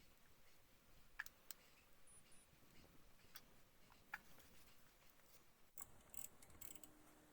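Near silence with a few faint, scattered light clicks, and a short cluster of clicks near the end.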